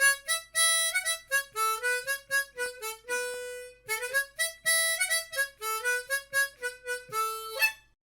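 A solo instrumental melody of many quick notes that stops abruptly just before the end.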